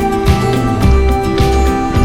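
Background music with a steady beat: guitar over bass and drums.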